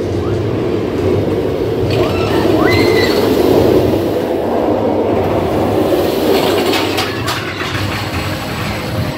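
Rocky Mountain Construction single-rail roller coaster train rumbling along its rail as it passes. The sound swells to its loudest about three to four seconds in and eases off near the end.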